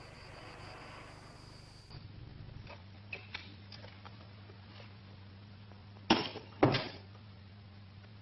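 Two sharp thumps a little over half a second apart, the loudest sounds, preceded by a few faint clicks and ticks, over a low steady hum.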